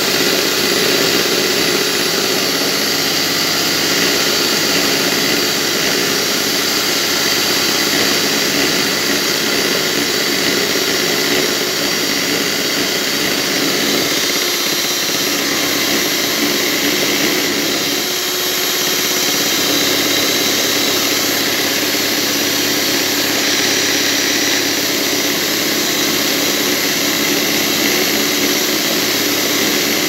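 Mondial Prática Duo Black stand mixer running steadily, its twin beaters whipping cold egg whites into foam in the bowl.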